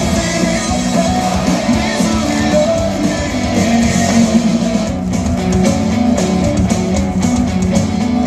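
Loud guitar-led rock music playing between sung verses.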